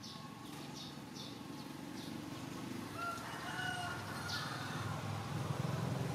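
A rooster crows once about halfway through, over repeated short high chirps and a low steady hum that grows louder toward the end.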